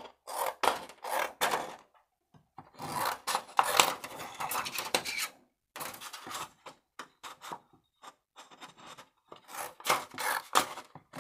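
Scissors cutting through a sheet of shrink plastic, in runs of quick snips with short pauses between them.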